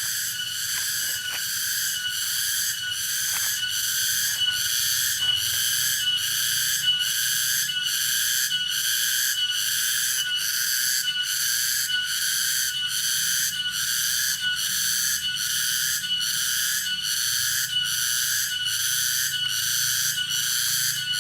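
Cicada (tonggeret) singing: a loud, shrill, continuous buzz that pulses in an even rhythm, about one and a half pulses a second.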